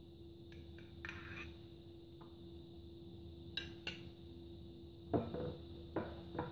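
Faint clinks of a spoon and kitchen utensils against a glass mixing bowl, two sharp ones about three and a half seconds in, then a silicone spatula starting to stir the wet dough ingredients in the bowl near the end, over a faint steady hum.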